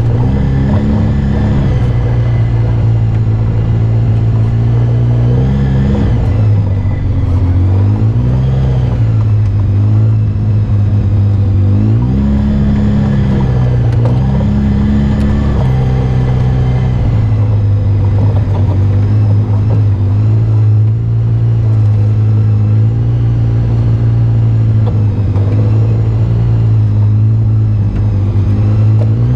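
Off-road vehicle engine running on a dirt trail, its pitch rising and falling several times as the throttle is opened and eased off.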